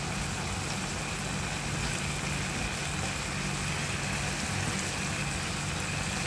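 Water spinach (kangkong) in adobo sauce simmering and sizzling in a pan: a steady hiss over a steady low hum, with a faint high whine.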